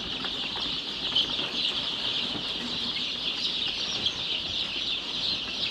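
A large flock of eight-day-old chicks peeping continuously, many overlapping high chirps, with a couple of light knocks among them.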